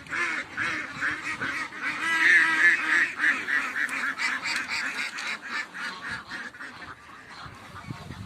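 A flock of domestic geese honking together, many overlapping calls, loudest a couple of seconds in and thinning out near the end.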